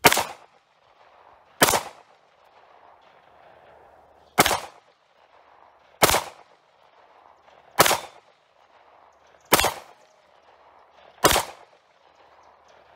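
Star Model BM 9mm pistol firing seven single shots at an unhurried pace, spaced about one and a half to three seconds apart.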